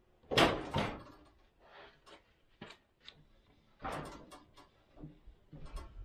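Heavy sawn white pine beams knocking and thudding against each other and a wooden trestle as they are set down and shifted. There are two loud knocks just after the start, lighter knocks over the next couple of seconds, and another cluster about four seconds in.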